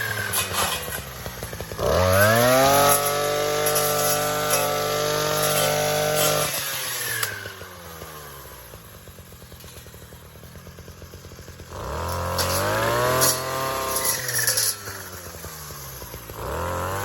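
Gas-powered weed trimmer's two-stroke engine cutting brush, revved up to full throttle and let back down to idle several times, with a long stretch of idling in the middle.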